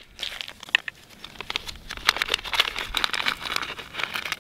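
Small metal screws and hardware parts clicking and rattling against each other as they are sorted by hand, with some crinkling.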